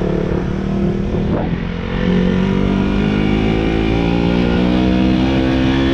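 Motorcycle engine running steadily under way, its pitch holding and edging slightly upward, over a low rumbling noise.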